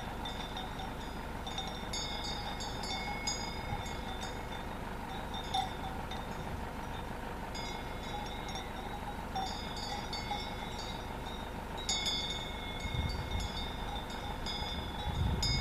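Small metal bells on grazing animals tinkling irregularly in short clusters, over a steady low rumble. Wind buffets the microphone near the end.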